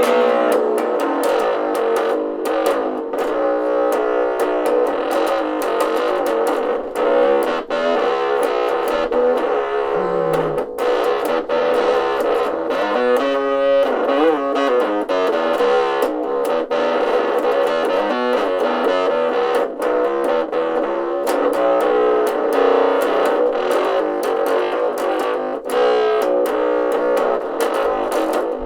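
Electric bass guitar played with distortion: a continuous run of plucked notes and riffs, thin in the deep bass.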